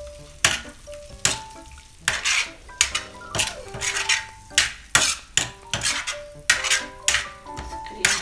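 Steel spoon scraping and clanking against a flat iron tawa as thick liver masala is stirred and turned, about two strokes a second, with the masala sizzling underneath.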